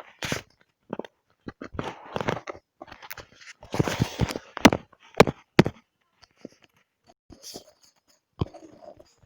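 Irregular scratching and rubbing strokes of drawing on paper, in short runs with sharp clicks and knocks between them.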